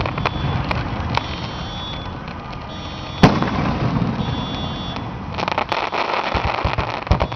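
Fireworks going off: a few sharp bangs, a louder report about three seconds in, then a quick run of crackling pops over the last two seconds.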